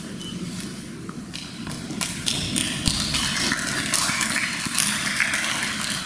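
Audience applauding, a dense patter of many hands clapping that builds about two seconds in.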